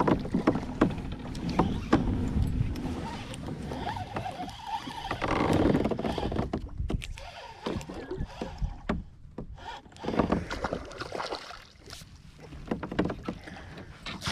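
Handling noise on a fishing kayak: irregular knocks, clicks and rustling with a low rumble of wind and water as a hooked bass is brought in. It quietens somewhat in the second half.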